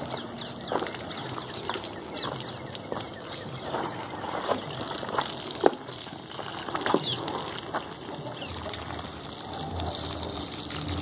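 Scattered bird calls and chirps over the steady sound of water running from a garden hose onto muddy soil, with a few sharp clicks.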